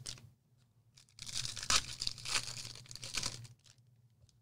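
Foil trading-card pack wrappers being torn open and crinkled: rough tearing and crackling that starts about a second in and stops shortly before the end.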